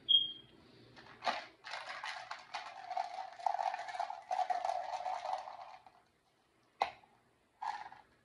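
A short high beep right at the start. Then a pink hard-plastic toy purse is handled: a click, about four seconds of plastic rattling and clattering, and two more single clicks near the end.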